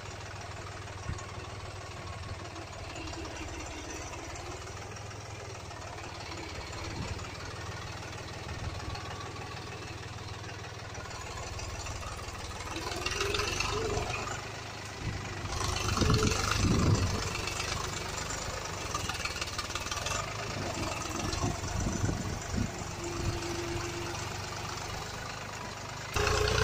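Truck engine running steadily with a low rumble, growing louder for a few seconds just past the middle.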